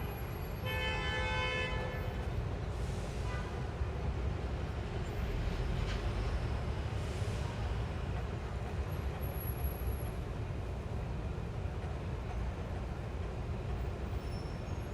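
Busy city street traffic ambience: a steady low rumble of engines and tyres, with a brief pitched tone, like a horn or brake squeal, from about half a second to two seconds in.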